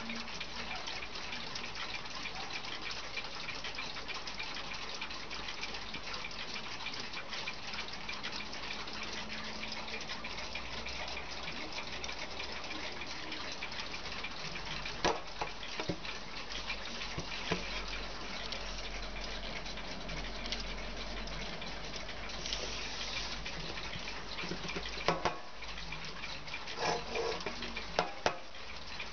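Wall clock ticking over a steady hiss, with a few louder knocks and clicks in the second half.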